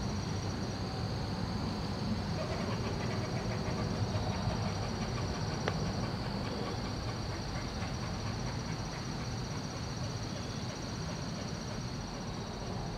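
Quiet outdoor ambience: a steady, high, even insect trill over a low rumble.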